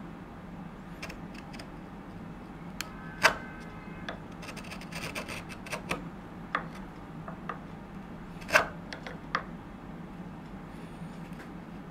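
Bench chisel paring wood by hand: quiet scraping strokes broken by scattered sharp cutting clicks, the loudest about three seconds in and again at about eight and a half seconds.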